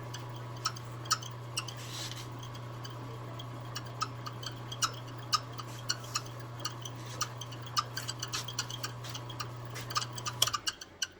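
Small wood lathe running with a steady hum, with irregular sharp ticks and clicks throughout, then switched off about ten and a half seconds in, followed by a few louder clicks.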